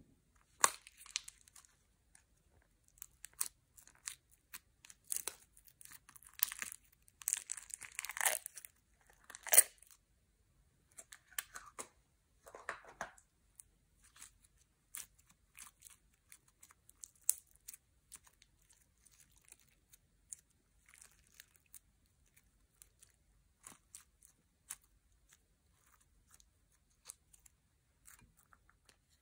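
Hands squeezing and kneading a slime packed with small plastic beads, giving a sticky crackling and crunching. The crackling is dense for about the first ten seconds, then thins to scattered clicks and pops.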